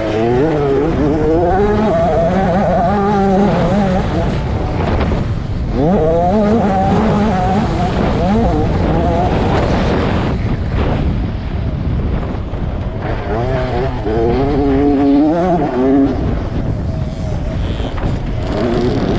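Small two-stroke motocross engine of an MX65 youth bike revving hard, its pitch climbing and falling again and again as it winds out through the gears, with short lulls where the throttle is shut, over a steady rush of wind and track noise.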